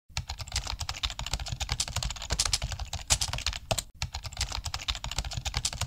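Pen writing on paper, sped up: a fast, dense run of scratching and tapping strokes, broken by a brief pause about four seconds in.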